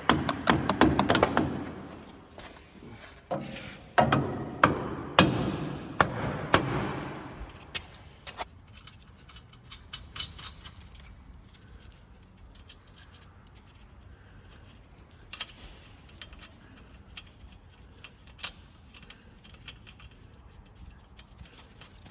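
Metal tools and parts being handled: a dense run of clinks, jangles and knocks for about the first eight seconds, then only occasional light clicks.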